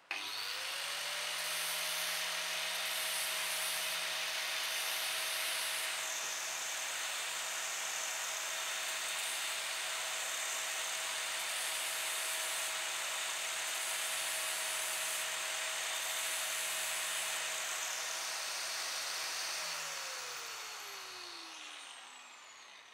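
Angle grinder clamped in a bench vise, running with a steady whine while the end of an aluminium rod is ground against its spinning disc to put a 45-degree taper on it. Near the end the grinder is switched off and its whine falls as the disc winds down.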